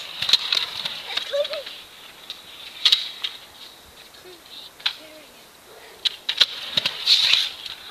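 Kick scooter clacking and knocking on concrete ramps and coping: a string of sharp clicks and knocks, with a longer, louder rattle about seven seconds in.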